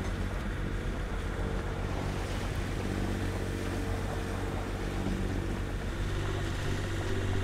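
Sailboat's engine running steadily under way, a constant low drone, with wind and sea noise around it.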